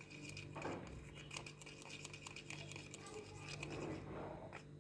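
Homemade slime of glue and cream being stirred in a container: faint, irregular scraping and small sticky clicks.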